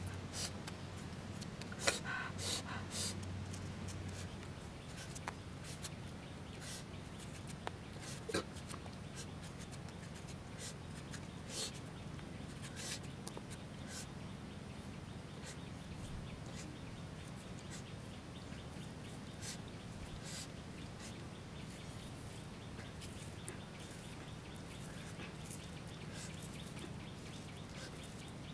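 Kitchen knife cutting through ripe star fruit: scattered short, crisp cuts and clicks, several close together in the first few seconds and then sparser, over a steady low background hum.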